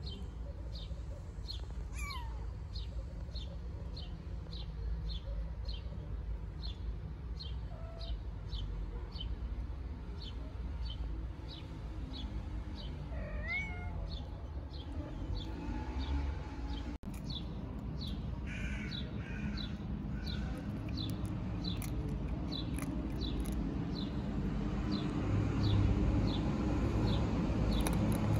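Small kittens mewing a few times, thin high calls, one sliding down in pitch about two seconds in and others wavering about halfway through. Behind them a short high chirp repeats about twice a second throughout, over a steady low rumble.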